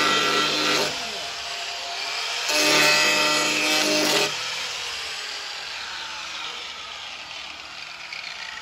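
Electric angle grinder grinding the rusted steel edge of a car's sill. It cuts into the metal for about a second, eases off, then grinds again for nearly two seconds. After that it is lifted away and the disc winds down with a slowly falling whine.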